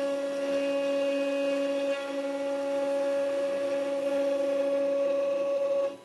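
800 W CNC router spindle running with a steady whine while its engraving bit mills an aluminium cylinder turned on the rotary fourth axis. The sound drops out briefly at the very end.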